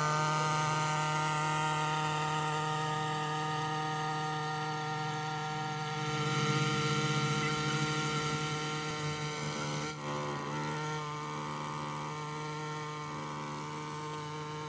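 Small outboard boat motor running at a steady speed and a steady pitch, with a brief wobble in the sound about ten seconds in.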